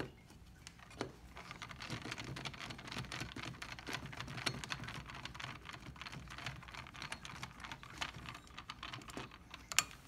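Screwdriver driving small screws back into a Triton ATM receipt printer's head mount: a dense run of quick little clicks and ticks of metal on metal, with a sharper knock about a second in and a couple more near the end.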